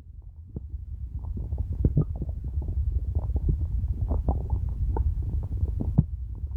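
Hungry human stomach growling: a low steady rumble with many short, irregular gurgles and pops, growing louder over the first couple of seconds.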